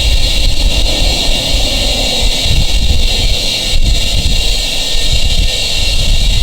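Compressed air from a portable air tank hissing steadily through the hose into a freshly plugged tire as it is reinflated, with a low rumble underneath.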